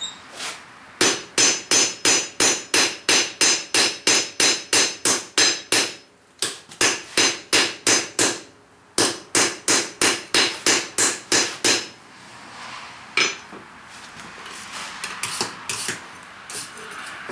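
Hand hammer striking hot steel on an anvil in quick runs of about three to four blows a second, with two short pauses between runs, as a ball-peen hammer head is forged flat into a hide scraper. Near the end the blows stop, leaving one last strike over a quieter steady noise.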